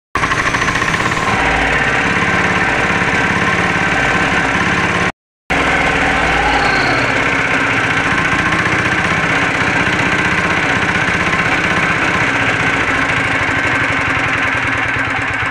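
Water-cooled single-cylinder Chinese diesel engine running after repair, a loud steady fast chugging. The sound cuts out for about half a second about five seconds in, then carries on the same.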